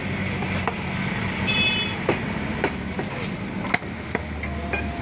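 Cleaver blade striking beef on a wooden log chopping block: several sharp, separate knocks, over a steady low rumble.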